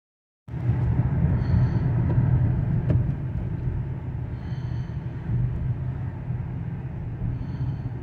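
Road noise inside a moving car: a steady low rumble of engine and tyres that starts half a second in, with a faint high chirp about every three seconds.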